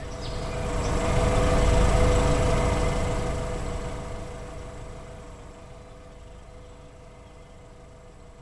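A vehicle engine running with a steady hum, growing louder over the first two seconds and then slowly fading away.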